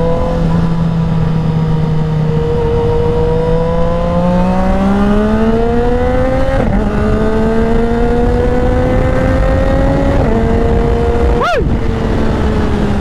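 Motorcycle engine heard from on board under moderate acceleration, its note climbing slowly and dropping sharply at two upshifts, about six and a half and ten seconds in, with a short sharp blip near the end. Wind rushes steadily over the microphone underneath.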